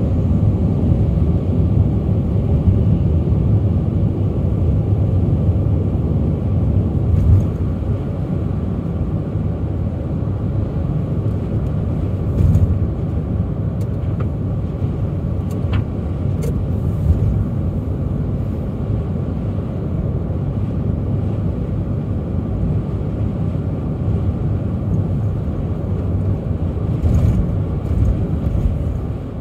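A car driving along, with the steady low rumble of its engine and tyres on the road and a few light knocks along the way.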